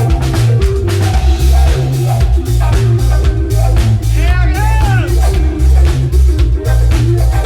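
Band music with a steady drum beat, heavy bass and guitar, with a bending high melodic phrase about four seconds in.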